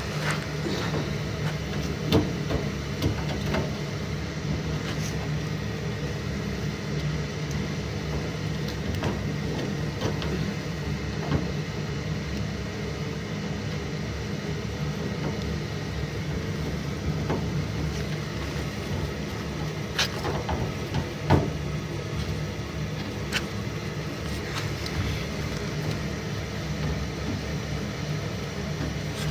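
Steady hum of a running furnace, with scattered light clicks and knocks of parts being handled; a sharper knock comes about 21 s in.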